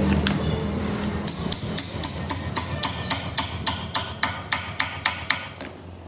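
Quick, light hammer strikes on metal, about four a second, in an even rhythm that stops near the end.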